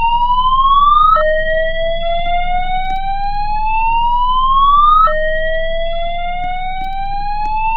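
A voice-evacuation fire alarm sounding its slow-whoop tone: a loud siren-like note that rises steadily in pitch over about four seconds, drops back and sweeps up again. Each repeated sweep is the evacuation alert signal.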